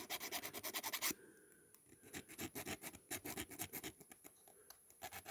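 Quick scraping strokes of a hand tool on metal, in short runs with pauses: the rivets of a diecast toy car's base plate being worked to free the base.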